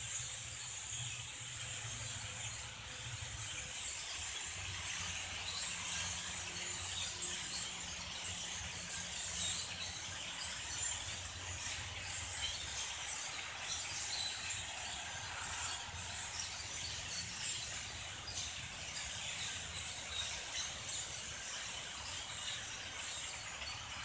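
A large flock of blackbirds calling at once: many short, high calls overlap into a steady, continuous chatter, over a low, steady hum.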